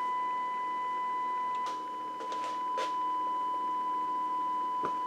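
Steady 1 kHz sine test tone with faint overtones at two and three times the pitch, coming from the KT88 drive stage's interstage transformer. A few faint clicks in the middle and near the end.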